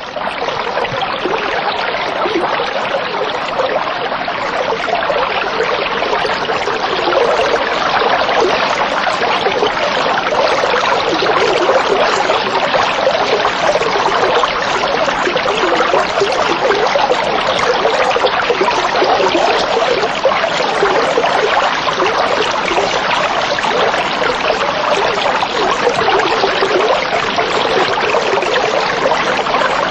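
Steady rushing of running water, even and unbroken, with no animal calls over it.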